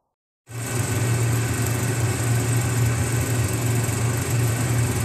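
Film projector sound effect under an old-film countdown leader: a steady mechanical whirr and rattle with a low hum, starting abruptly about half a second in.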